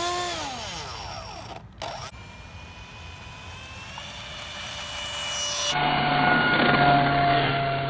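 Electric ducted fan of a small RC F-18 jet whining. Its pitch first rises and falls with the throttle, then holds steadier and louder from about six seconds in.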